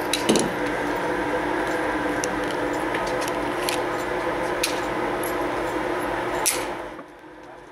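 Steady hum of an indoor range's ventilation, with several sharp metallic clicks from a Walther P22 pistol being handled on the bench. The hum drops away about seven seconds in.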